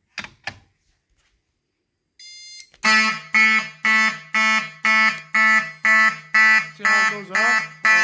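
Simplex pull station handle pulled down with two quick clicks. About two seconds later there is a brief beep, and then the fire alarm horn strobe starts sounding in march time: loud, pulsing about twice a second.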